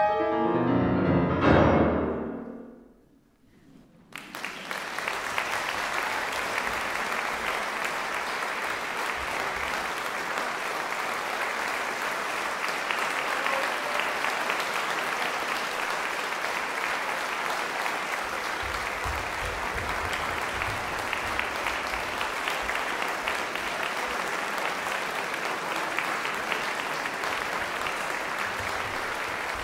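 Two grand pianos end a piece with a loud downward flourish into a final chord that rings and dies away. After a second or so of silence, audience applause breaks out and continues steadily.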